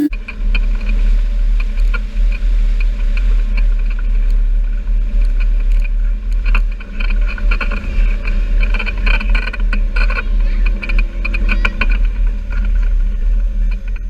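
A John Deere Gator XUV 825M utility vehicle being driven: a steady low engine and drive rumble, with many short clicks and rattles from the vehicle.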